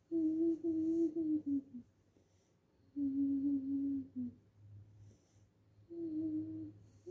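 A young girl humming a tune to herself with her mouth closed: three drawn-out, steady notes, the first and second each dropping in pitch at the end, with short pauses between them.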